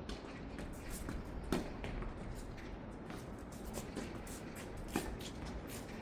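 Tennis balls being hit and bounced on a hard court: scattered sharp knocks, with two louder ones about three and a half seconds apart.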